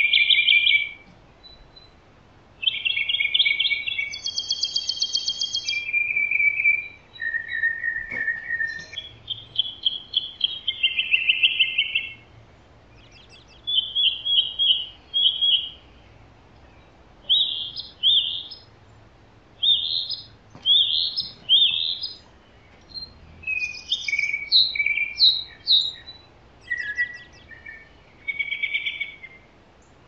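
A songbird singing a long run of short, varied phrases of clear slurred notes and quick trills, with brief pauses between the phrases.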